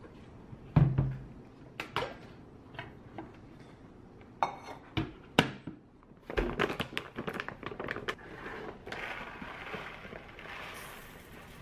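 A run of knocks and clatters as kitchenware, including a rice cooker's non-stick inner pot, is handled and set on a counter, the loudest about a second in. From about eight seconds in, uncooked rice pours from a bag into a measuring cup with a steady rustling hiss.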